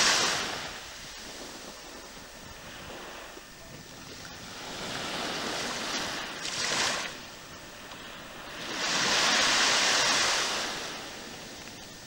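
Small sea waves washing, a hiss that swells and fades twice, the second swell the longest and loudest, with a light rumble of wind on the microphone.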